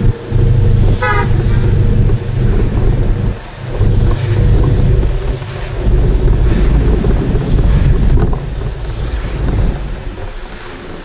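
Bus engine and road noise running steadily on the move, with one short horn toot about a second in.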